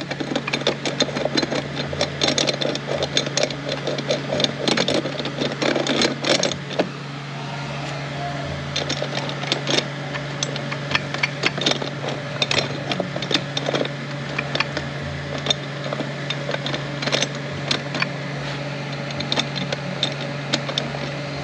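Metal clicking and ticking as a Ford 10R80 ten-speed automatic transmission's planetary gear set is turned by hand and worked down onto the sun gear, its pinions being rocked into mesh. A steady low hum runs underneath.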